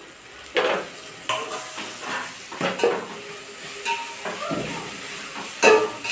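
A cooking utensil stirring and clattering against a pan, irregular knocks and scrapes, as tomatoes and green chillies go into the frying onion masala, with a steady sizzle of hot oil underneath.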